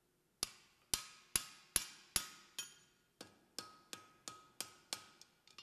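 Blacksmith's hand hammer striking the axe steel on an anvil: about two to three blows a second, six, a short pause, then seven more, each with a brief metallic ring. The first blows are the loudest.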